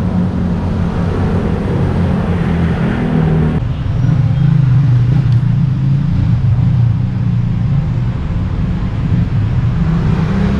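Steady low engine hum of a motor vehicle running. About a third of the way in it changes abruptly to a lower, louder drone.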